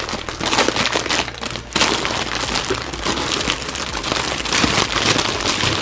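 Packaging around a roll of tulle being handled, crinkling and rustling continuously.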